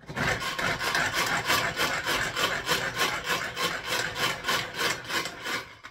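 Tupperware pull-cord hand chopper being worked, its blades whirring and rattling round the bowl as onion and garlic are chopped fine. The strokes come quick and even, about five a second, and stop abruptly near the end.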